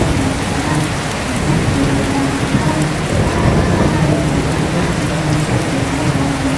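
Steady heavy rain with a low rumble of thunder. Faintly beneath it, a voice chants shalawat in long held notes that come and go.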